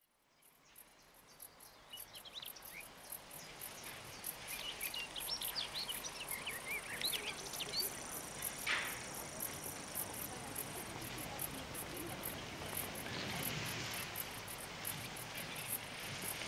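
Crickets chirping steadily, a few high chirps a second, with scattered bird chirps in the first half. The sound fades in from silence over the first few seconds.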